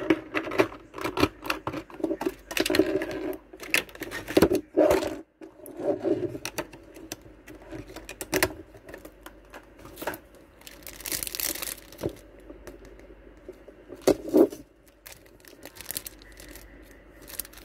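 Plastic packaging crinkling and rustling in the hands, with many sharp taps and clicks, and a longer hissing rustle about eleven seconds in.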